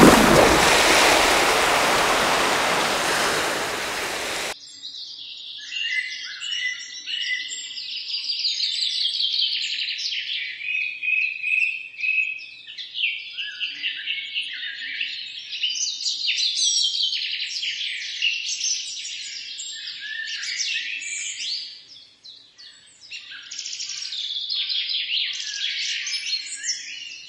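A loud splash into river water, its rushing noise fading over the first four seconds and then cutting off abruptly. After that comes a dense chorus of songbirds, several chirping and trilling at once.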